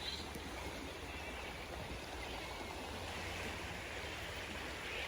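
River water flowing, a steady rushing noise, with faint high chirping now and then above it.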